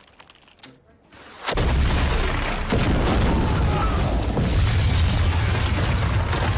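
A huge cinematic explosion sound effect. It breaks in about a second and a half in and carries on as a loud, deep, rumbling blast.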